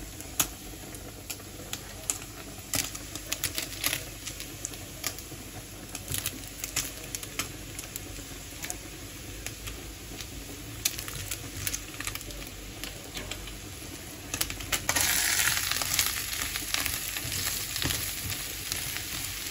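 Sliced mushrooms dropped by hand into a hot frying pan of browned chicken pieces, with scattered light taps and crackles of frying. About fifteen seconds in the sizzling grows much louder as the pan is stirred with a wooden spatula.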